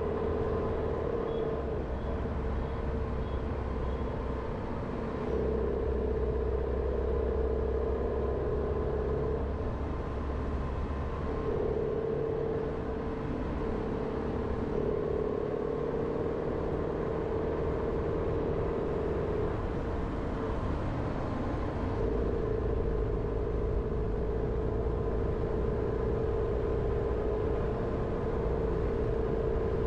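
A Jeep Renegade driving, with steady engine and road noise. A humming tone in the noise drops out and comes back a few times.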